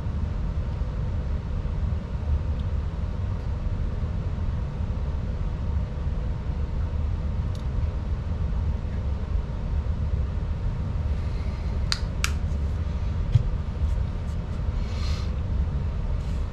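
Steady low background hum, like a fan or room machinery. About twelve seconds in come a few light clicks of small parts being handled, then a brief rustle.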